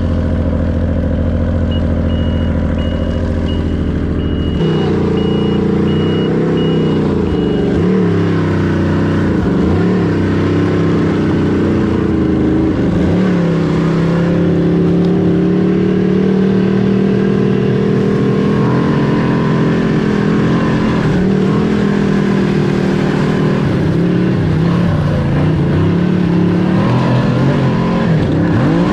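Yamaha Nitro snowmobile engine idling, then pulling away about four and a half seconds in and running under way, its note rising and falling. It sounds like crap, which the owner blames on moisture in its dyed farm fuel. A high pulsing beep sounds for the first several seconds.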